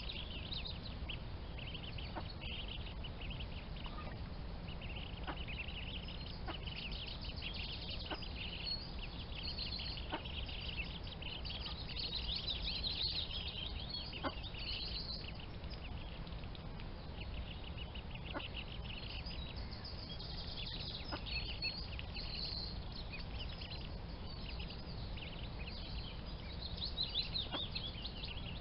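Ducklings peeping, many short high-pitched peeps coming in clusters on and off, over a steady low rumble.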